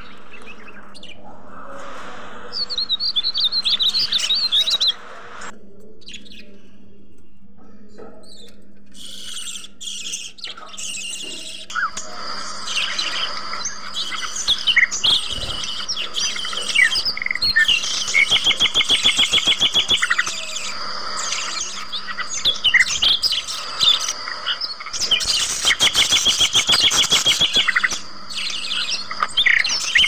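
A flock of caged budgerigars chirping and chattering, with fast rattling trills that run for a second or two at a time.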